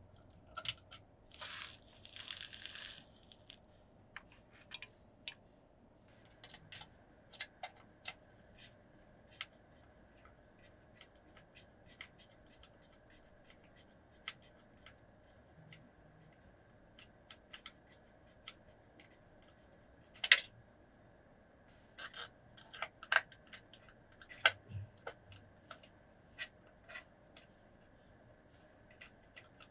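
Scattered small clicks, taps and scrapes of hands handling PC hardware and parts, with two short rustles of packaging about two seconds in. The sharpest click comes about twenty seconds in, followed by a quick run of taps.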